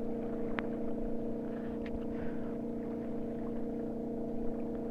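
Speedboat engine running out on the lake, a loud, steady drone that holds an even pitch throughout. A brief click about half a second in.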